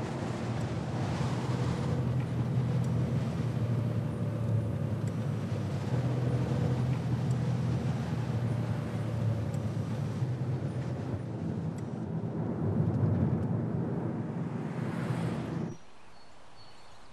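Motor vehicle driving along a road, heard from inside the cabin: steady engine hum and road noise. It cuts off suddenly near the end, leaving a quiet outdoor background with a few faint high chirps.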